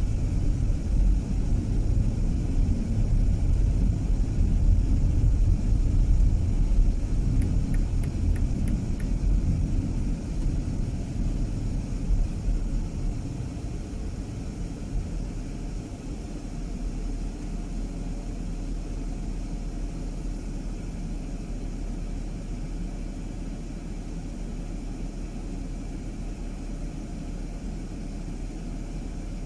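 A car driving: steady low road and engine rumble, louder for the first dozen seconds, then easing off to a quieter, even level.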